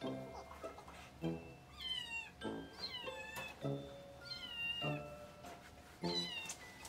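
A kitten meowing four times, high calls that rise briefly and then fall in pitch, over background music with a plucked beat.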